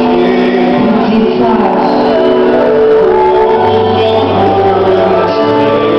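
Live worship band music: held keyboard chords under singing voices, with a low bass note coming in about three and a half seconds in.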